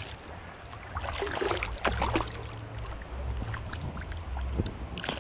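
Irregular splashing and sloshing of river water as a hooked bass thrashes at the surface and is brought in by hand, over a low steady rumble.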